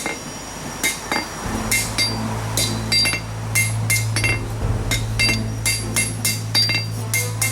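Hand hammer striking hot steel on an anvil, forging the point of a knife blade made from a farrier's rasp: steady blows about two to three a second, each with a short metallic ring. A steady low hum joins about a second and a half in.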